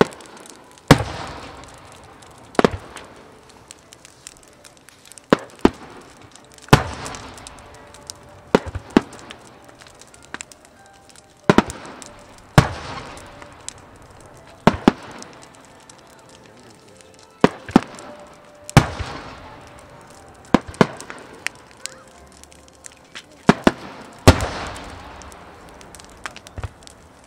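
Aerial fireworks bursting: sharp bangs every one to three seconds, some in quick pairs, the bigger ones trailing off over a second or two.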